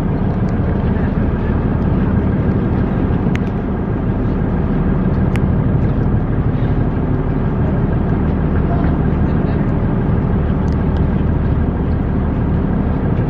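Small excursion boat's engine running steadily, a loud, even low drone heard from the boat's open deck.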